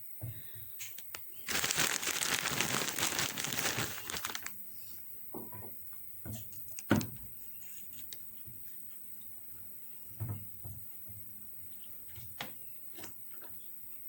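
Crinkling, rustling handling noise for about three seconds as crimped nylon fibre is handled, then a few sharp knocks, one loudest about seven seconds in.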